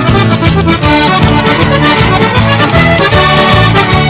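Lively accordion-led Newfoundland folk music with a quick, steady beat, instrumental with no singing.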